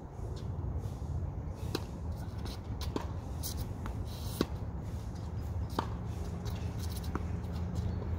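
Tennis ball knocks, about five sharp ones roughly a second and a half apart, over a steady low rumble.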